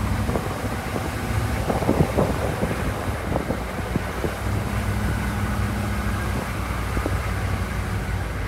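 Vehicle driving along a road: a steady low engine and road rumble, with a few brief knocks about two seconds in.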